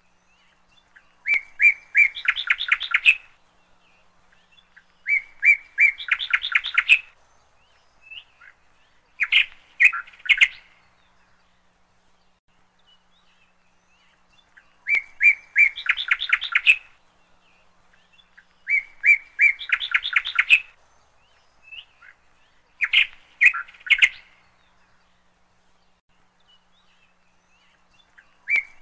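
Bird chirping in short, rapid trilled phrases a few seconds apart, with quiet gaps between them. The same sequence of phrases comes round again about fourteen seconds later, like a looped recording.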